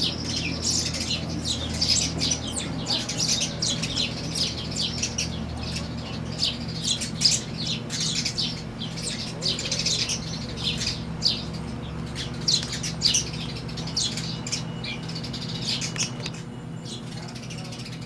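House sparrows chirping: many short, sharp chirps in quick succession, thinning out near the end, over a steady low hum.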